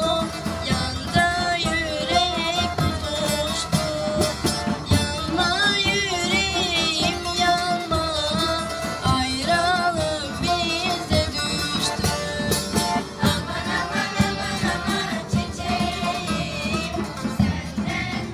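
Live folk music: a woman sings into a microphone with a wavering vibrato, accompanied by accordion, long-necked lutes (bağlama) and a large bass drum (davul) beating a steady rhythm.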